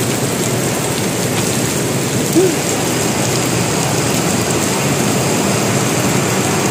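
Heavy downpour: rain pouring steadily onto the pavement and road, a dense even hiss. One brief short tone rises above it about two and a half seconds in.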